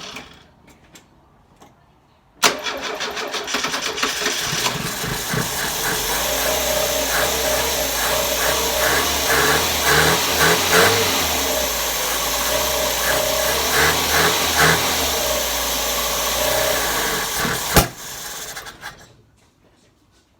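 Engine that has sat unused for six months being started: it kicks in suddenly, runs unevenly with a few revs for about fifteen seconds, then stops abruptly.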